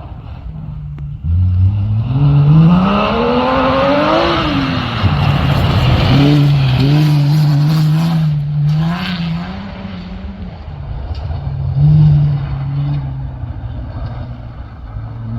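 Rally car engine accelerating hard on gravel: the revs climb steeply for about three seconds, drop, then hold at a steadier high pitch with smaller rises and falls. A short rush of noise, like flung gravel, comes about halfway through.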